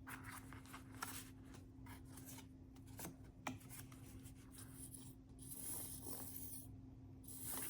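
Faint rustling and scraping of cardstock being handled while a glue bottle is squeezed, with a few small clicks and short hisses; the glue is coming out with difficulty.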